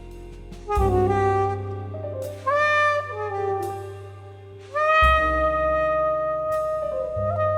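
Jazz quartet music: a soprano saxophone plays the melody in long held notes over piano, double bass and drums. Deep bass notes come in about a second in and again around five seconds in.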